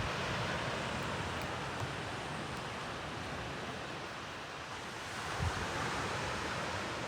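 Surf washing on a beach, a steady rush that swells again about five seconds in, with a brief gust of wind on the microphone at that point.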